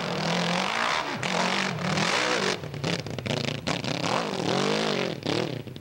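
Hillclimb racing motorcycle engine revving hard on the climb, its pitch rising and falling. About halfway through the revs turn choppy, cutting in and out in quick bursts.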